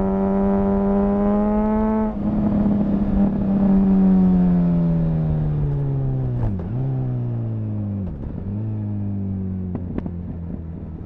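2004 Honda CBR1000RR Fireblade inline-four engine heard onboard, revving up and shifting up about two seconds in. It then slows on engine braking, with the revs dipping and jumping back twice on downshifts, and settles to a low, steady run near the end.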